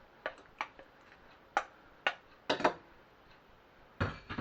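Cookware clinking and knocking against a pan as cooked pasta is tipped into the tomato sauce: a handful of separate sharp taps, with a heavier knock near the end.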